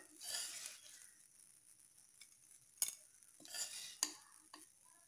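A spoon scraping and stirring in a non-stick pan as masala-coated boiled eggs are scooped out, in two short scraping spells with two sharp clinks against the pan.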